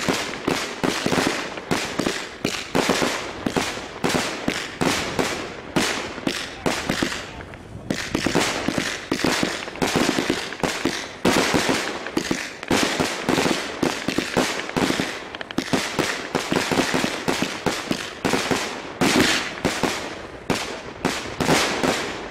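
Consumer firework cake firing a rapid, continuous string of shots and bangs, many a second, with a short lull about seven and a half seconds in.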